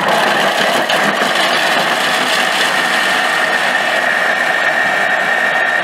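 Vorwerk Thermomix food processor's motor running at speed, a loud steady whirring with a high whine held at one pitch.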